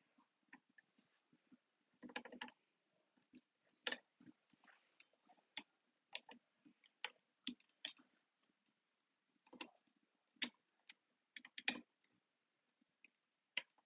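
Faint, irregular metallic clicks and light clinks as the lever, bolt and small parts of a Marlin 336 lever-action rifle are worked into the receiver during reassembly, with a brief cluster of rattling about two seconds in and again near the end.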